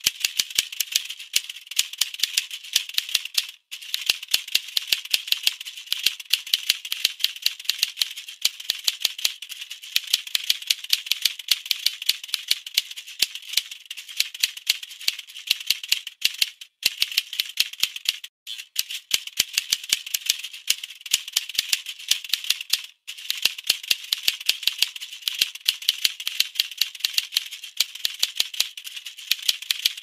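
Rapid clicks of a typing sound effect, like keys on a keyboard or typewriter, running at several a second with a few brief pauses. The washing machine's motor hum is not heard.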